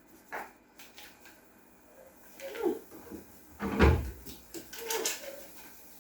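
Household knocks and clatter, like cupboards or drawers being handled, with a heavier low thump about four seconds in.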